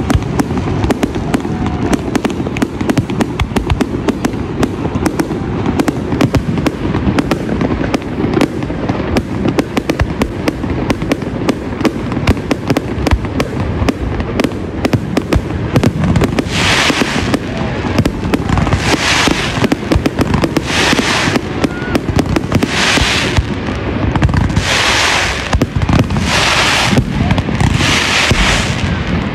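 Fireworks display: a dense, continuous run of bangs and reports. From a little past halfway, hissing crackles come in about every two seconds, each lasting about a second.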